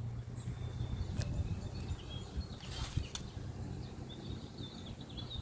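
Faint bird chirps over a low steady hum, with a couple of light clicks.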